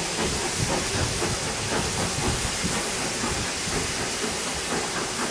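Barton Wright 0-6-0 steam locomotive pulling a train away, steam hissing steadily with exhaust chuffs coming in a loose beat as the coaches roll past.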